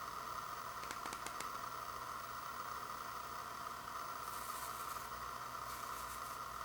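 Faint handling of plastic toothbrush packaging: a quick run of four light clicks about a second in, then two short rustles, over a steady hiss.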